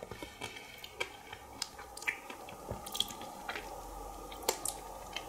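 A person chewing a mouthful of Magnum ice cream with a crisp white chocolate and coconut coating, with scattered small wet clicks.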